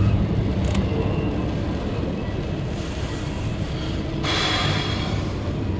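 CSX intermodal freight train of double-stack container cars rolling past, a steady low rumble heard from inside a car. About four seconds in, a burst of hiss lasting about a second.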